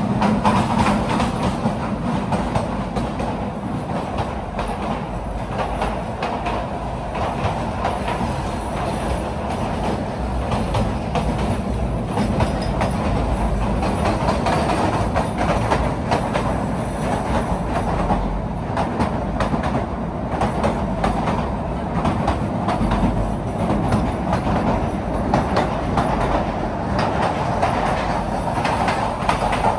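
Kalka–Shimla narrow-gauge toy train running, a steady rumble with wheels clicking and rattling over the rail joints.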